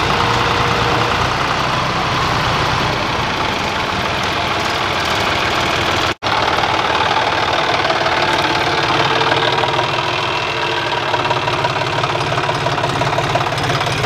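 John Deere tractors' three-cylinder diesel engines running steadily at idle, with a momentary break in the sound about six seconds in.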